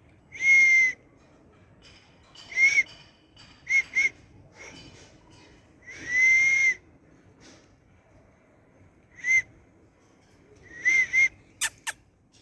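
A kitten mewing: about eight short, high-pitched mews, each rising and then falling in pitch, the longest in the middle. Two sharp clicks come near the end.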